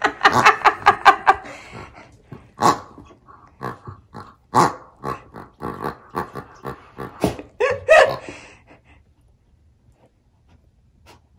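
Grunting polka dot pig dog toy grunting as a dog bites and squeezes it: a quick run of grunts at first, then scattered single grunts, stopping about nine seconds in.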